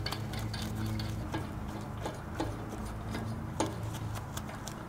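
Light, irregular metallic clicks and clinks as lug nuts are handled and threaded by hand onto the studs of a tractor wheel spacer, over a steady low hum.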